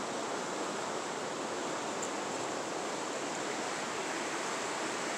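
Fast-flowing river rushing steadily.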